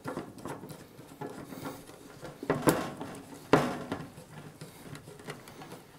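Hard plastic knocking and scraping as the white plastic side-element rods of an ANTOP AT-400BV flat-panel TV antenna are pushed and fitted into the sides of its plastic housing. There are two sharper clicks, about two and a half and three and a half seconds in.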